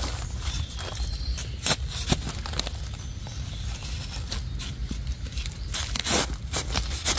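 Irregular rustling and crackling of dry forest-floor litter, with sharp snaps scattered through it and a cluster near the end, over a steady low rumble.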